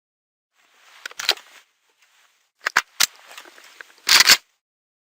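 AK-47 rifle sounds: three groups of sharp metallic clicks and rattles, like weapon handling, each cut off short. The last group, near the end, is the loudest.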